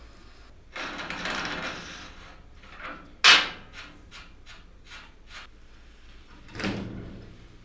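Workshop handling noises: a scraping slide about a second in, then one sharp, loud knock, several light clicks, and another short scrape near the end.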